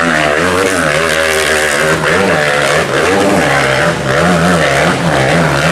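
Trail-bike engine revving hard under load on a steep dirt climb, its pitch rising and falling about twice a second as the throttle is worked.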